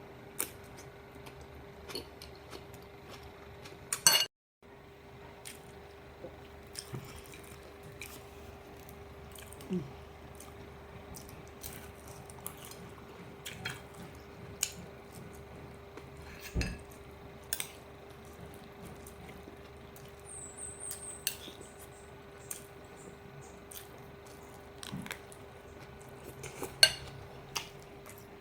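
Cutlery clinking and scraping against a plate at scattered moments while salad is eaten, with a sharp louder clink about four seconds in. A faint steady hum runs underneath.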